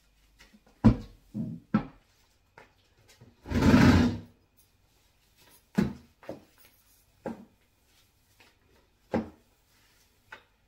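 Bristle broom being pushed across a tiled floor: a handful of short knocks and scrapes as the broom head strikes and drags on the tiles, with one longer, louder scrape near four seconds in.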